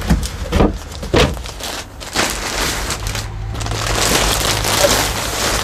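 A few knocks as the bed's storage board is handled, then the clear plastic protective wrap on a new mattress crinkling and rustling as hands press and move it.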